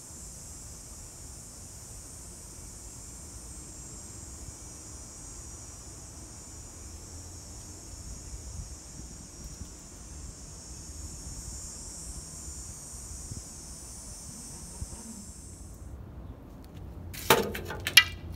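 Steady high-pitched insect buzz that cuts off suddenly near the end, followed by two sharp metallic clinks.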